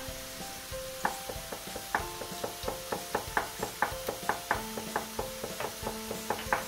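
Chef's knife slicing a garlic clove thinly on a plastic cutting board: light, irregular taps of the blade on the board, about three or four a second. Quiet background music with plucked notes plays under it.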